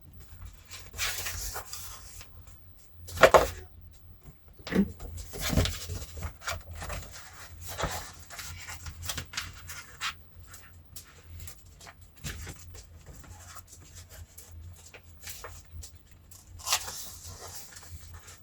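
Self-adhesive vinyl wrap film being handled and smoothed over a speaker cabinet: irregular crinkles, rustles and rubs, the loudest about three seconds in, with occasional light knocks against the cabinet.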